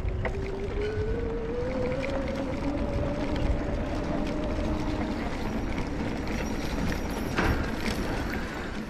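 Rumble and wind noise from riding a bicycle along a street, with a motor whine that rises in pitch over the first few seconds and then holds steady. A single sharp knock comes about seven seconds in.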